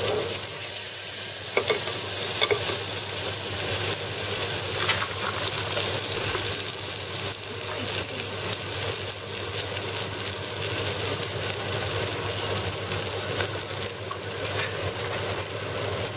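Butter sizzling steadily in a metal saucepan as it melts and bubbles, a continuous frying hiss with a low hum underneath and a few faint clicks early on.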